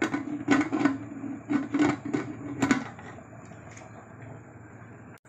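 Aluminium pressure cooker lid being fitted and twisted shut: a run of about seven metal clicks and scrapes over roughly three seconds, then it goes quiet.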